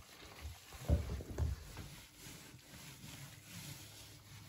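Hand pressing and smoothing damp, loose soil substrate on the floor of a glass tank: soft rustling and squishing, with a couple of dull thumps about a second in.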